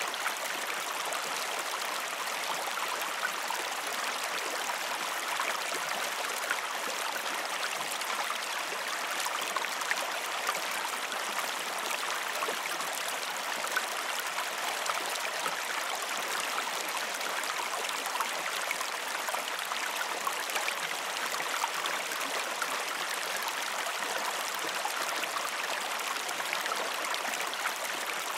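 Creek water running steadily over rocks, a continuous rushing babble with many small splashes and no change in flow.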